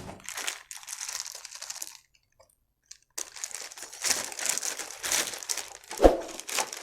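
Packaging being handled and crinkled, in two stretches of crackling with a short pause between, and a single knock about six seconds in.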